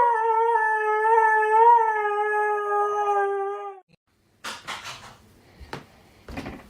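A dog howling: one long, wavering howl that sinks slightly in pitch and stops about four seconds in. Faint rustling and clicks follow.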